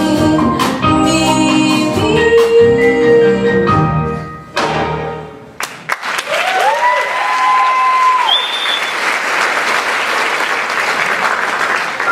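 A musical number ends in its closing bars, with a held note before the music stops about five and a half seconds in. Then a theatre audience applauds and cheers, with whoops rising over the clapping.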